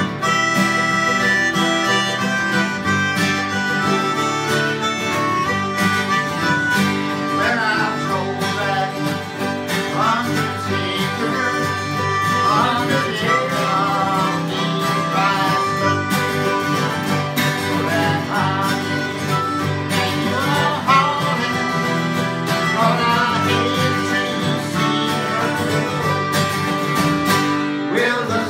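Country-style music led by plucked guitar, with a melody line that bends in pitch.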